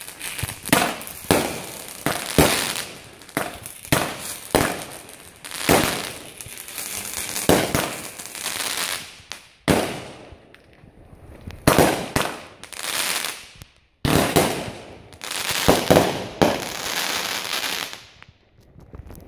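Two 16-shot consumer firework cakes firing together: a string of sharp shot bangs, about one a second, each trailing a hiss of crackling tails and spinners. There is a short lull about halfway, and the shots stop shortly before the end.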